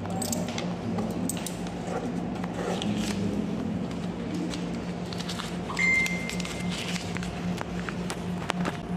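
Office counter sounds: scattered small clicks and handling noises over a steady low hum, with a short electronic beep about six seconds in.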